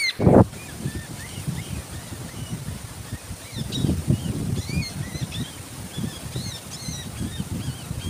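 A brief loud thump just after the start, then small birds chirping in short, scattered calls over a low, rumbling background.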